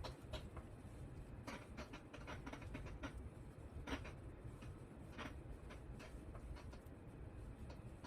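Light, irregular clicks and scratches of hands handling wires and small plastic parts on a workbench, over a low steady background hum.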